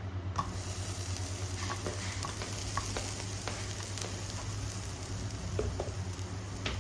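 Food sizzling in a hot pan, starting about half a second in, while it is stirred with a spatula that clicks and scrapes against the pan now and then. A steady low hum runs underneath.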